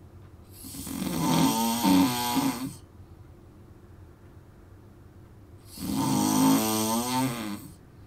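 A sleeping man snoring: two snores about two seconds long each, the first swelling up gradually a little after the start and the second near the end, with a quiet breath-length gap between them.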